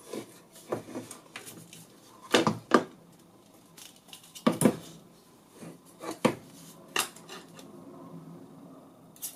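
Round metal cover of a vintage electronic timer unit being lifted off and handled over its metal base plate: a series of metallic clanks and knocks, loudest about two and a half and four and a half seconds in.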